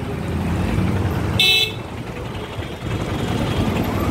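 Street traffic: a steady rumble of engines and road noise, with one short, high-pitched vehicle horn toot about a second and a half in.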